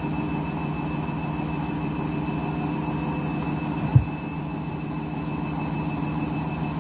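Candy front-loading washing machine spinning a half load of bedding, a steady hum from the motor and drum. About four seconds in there is a single heavy thump as the out-of-balance load knocks the drum.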